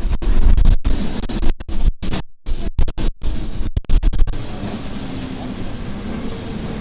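Electric tram running with a heavy low rumble. For the first four seconds the sound keeps cutting out abruptly, then settles into a steadier running noise.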